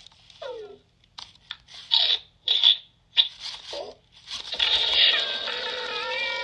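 Loona robot pet's electronic sound effects: a short falling chirp, then a run of crunchy biting and chewing sounds as it tastes food. About four seconds in comes a longer hissing, warbling cry, its reaction to the food being too spicy.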